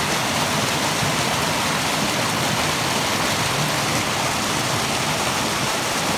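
Mountain stream rushing and splashing between boulders: a steady, even rush of water.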